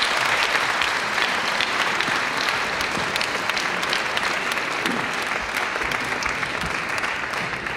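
Audience applauding, a dense steady clapping that slowly thins toward the end.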